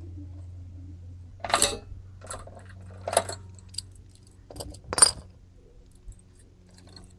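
Metal hand tools clinking and clattering as they are handled and set down while adjusting the valve clearance on a small engine. There are about half a dozen sharp clinks, the loudest about five seconds in.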